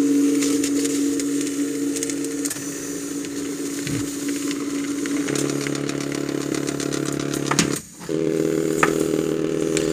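Silver Reed EB50 pen plotter's two stepper motors whining as they drive the pen carriage and paper feed roll through line after line. The pitch shifts every few seconds as the motors change speed for each new line angle, with a brief stop about eight seconds in.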